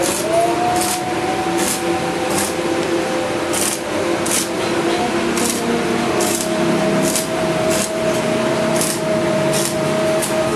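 Stick arc welding on steel bars: a steady frying sizzle from the electrode arc, broken by irregular sharp crackles, with a steady hum underneath.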